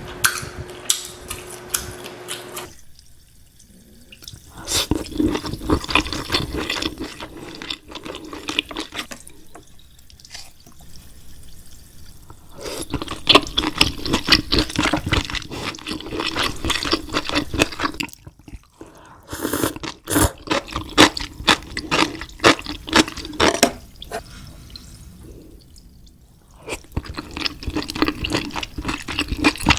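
Wet, saucy seafood-boil eating sounds close to the microphone: sauce-coated seafood squelching and dripping, with bursts of dense clicking and crackling that come and go every few seconds.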